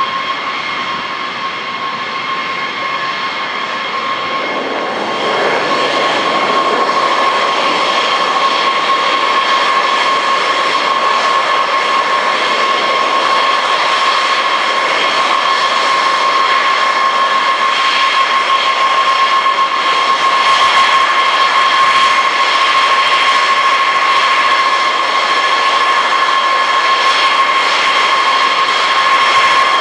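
Boeing B-52 Stratofortress's eight jet engines, military versions of the JT3, running at taxi power: a steady high whine over a rushing roar, stepping up in loudness about five seconds in.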